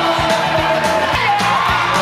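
Background music with a steady beat of about two beats a second and a melody line over it.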